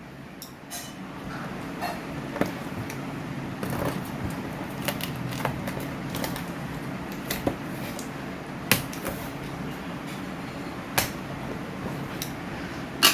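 Cardboard box being handled and its packing tape pulled off: scattered sharp knocks and clicks over a steady low rustle.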